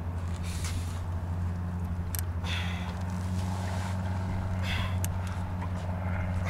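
A fishing boat's motor running with a steady low hum, with a few short hisses over it about two and a half seconds and five seconds in.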